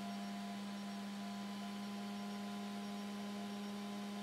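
Steady electrical hum from the powered-up FPV video transmitter setup: one constant low tone with fainter higher tones above it and a light hiss.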